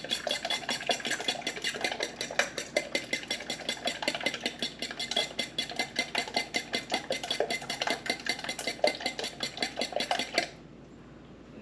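Eggs and heavy cream being beaten in a stainless steel mixing bowl, the utensil clinking rapidly against the metal at about five strokes a second, stopping suddenly about ten and a half seconds in.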